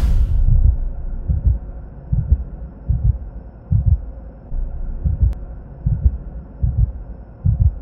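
Heartbeat sound effect: low, muffled thumps at about one beat a second over a faint steady drone.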